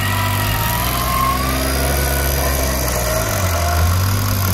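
Jeep Wrangler JK engine running steadily at low revs as the off-road Jeep crawls over rough, muddy ground.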